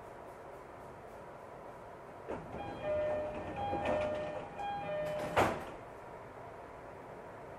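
Door-closing chime of a JR East E231-series commuter train: a two-tone high-low chime sounding three times, then the sliding doors shutting with a loud thud about five seconds in, as the train gets ready to depart.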